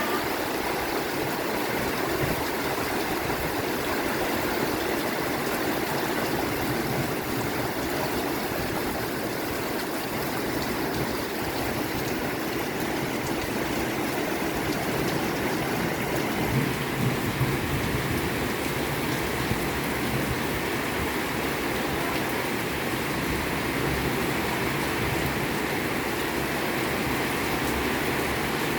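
Heavy rain pouring steadily, an even hiss of water with a few slightly louder splashes about two-thirds of the way through.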